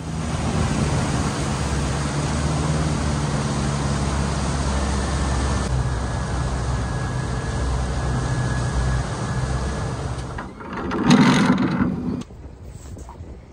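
Motorboat running at speed: a steady low engine drone under a loud rush of wind and water. About eleven seconds in comes a brief louder rush, then the sound drops and stays much quieter.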